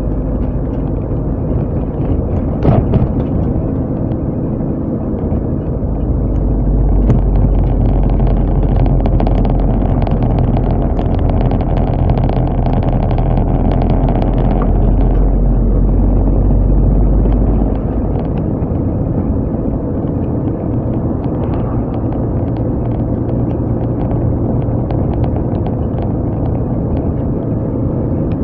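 Car engine and road noise of a moving car, a steady drone. The low rumble grows heavier from about six seconds in and eases off again a little after halfway.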